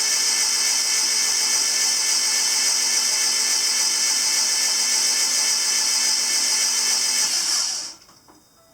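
A power tool's motor running at a steady high whine, then switched off and winding down quickly near the end.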